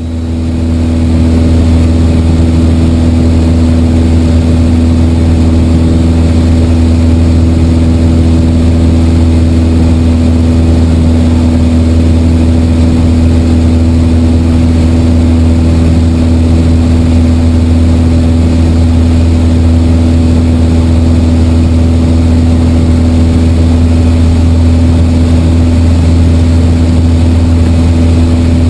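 Piper PA-28's four-cylinder Lycoming engine and propeller droning steadily in cruise flight, heard inside the cabin: a loud, even low hum with a higher steady tone over it and rushing air noise.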